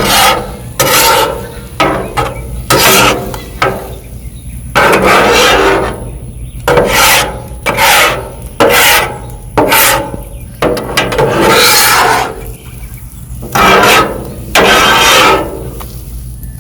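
Spatula scraping over a flat-top griddle, mixing an omelet of eggs and chopped vegetables: a series of loud rasping strokes, about one a second.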